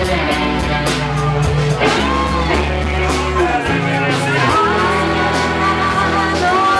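A rock band playing live: a woman singing lead over electric bass and guitar, with drums and cymbals keeping a steady beat.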